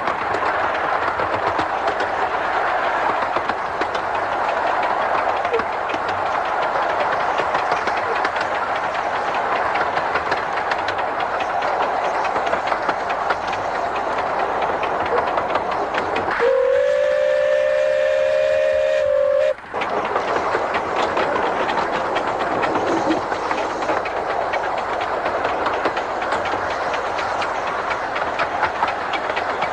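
Steam locomotive No.5 Hercules of the 15-inch-gauge Romney, Hythe & Dymchurch Railway running steadily, its exhaust and wheels on the rails making a continuous clatter. A little past halfway its whistle sounds once, held for about three seconds and cut off sharply.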